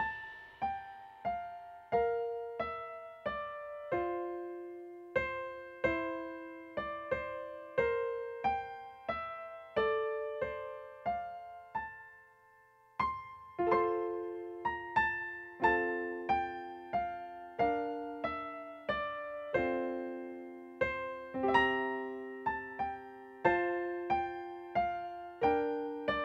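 Solo keyboard playing a slow, free passage of single notes and chords, each struck and left to ring and die away, with no drums or bass. There is a brief pause about halfway through.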